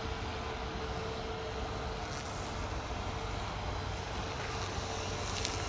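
Airbus A321neo taxiing on its jet engines at low power: a steady rushing noise with a faint constant tone.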